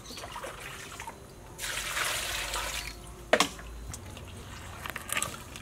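Water poured from a plastic dipper into a large steel basin holding a fish, splashing for about a second and a half. A sharp knock follows, then light sloshing and clatter as the fish is rinsed in the basin.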